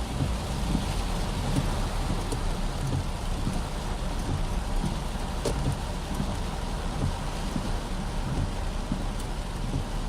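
Heavy rain falling steadily and splashing on hard surfaces, a continuous dense hiss with a low rumble underneath.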